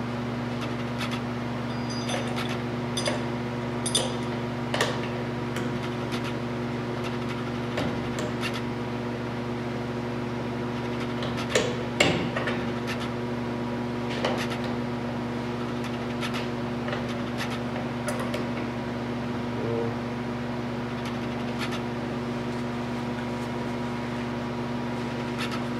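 Scattered small clicks and knocks of metal gearbox parts being handled and fitted into an open ATV transmission case, a few louder knocks about twelve seconds in, over a steady hum.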